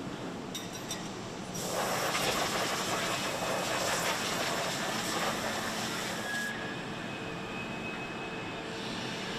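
Foundry machinery hum with a steady background din. About a second and a half in, a loud hiss of air starts, lasts about five seconds and then stops.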